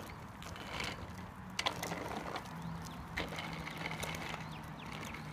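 Child's bicycle with training wheels rolling slowly on asphalt: irregular ticking and rattling from the bike, with a couple of sharper clicks.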